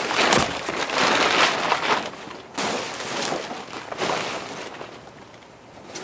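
Plastic tarps rustling and crinkling as they are thrown and pulled over a barrel tank. The noise comes in a few surges, loudest in the first two seconds.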